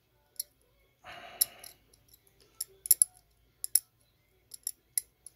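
Steel dental pick scraping and picking scale out of the bore of a Kubota D902 diesel fuel injector part: irregular sharp metallic clicks and scratches. The deposits are scaled hard inside the part.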